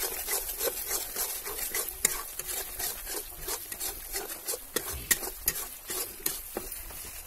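Metal spatula stirring and scraping a spice masala frying in oil in a metal wok (kadai): repeated scrapes against the pan, about three a second, over a steady sizzle.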